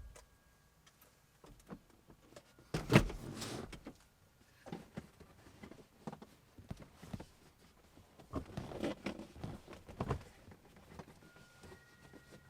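Scattered knocks, thumps and rustling as a car's back seat is pried loose from its locking tabs. The loudest knock comes about three seconds in, with a cluster of smaller knocks and scuffs later on.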